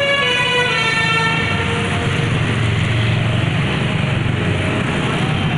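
An intercity bus's 'telolet' multi-tone musical horn playing its tune, which stops about a second and a half in, followed by the bus's engine and tyre noise as it passes close by.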